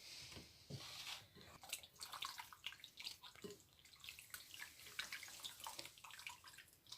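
Faint wet squelching and light clicks of raw chicken breast pieces being turned over in a milky marinade in a bowl.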